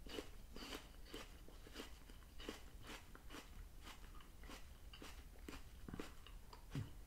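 A mouthful of crisp apple slice being chewed with the mouth closed: faint, regular crunches, about two or three a second.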